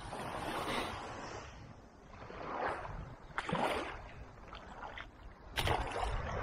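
Small waves washing over a sandy shoreline, with sharp splashes in the shallows about three and a half and five and a half seconds in, the later one the loudest, as a released gilthead sea bream thrashes at the surface.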